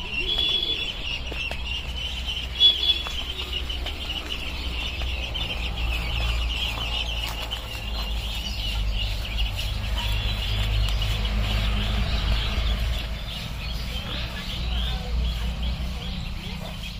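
A flock of ducklings peeping constantly, many short high calls overlapping into a continuous chorus, over a low rumble. A sharp click about three seconds in.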